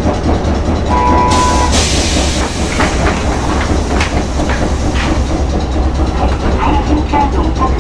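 Hankai Mo 161 nose-suspended-drive tram heard from inside the car: a steady low rumble, a brief tone about a second in, a short hiss of compressed air just after it, then a run of sharp clicks and knocks over the next few seconds.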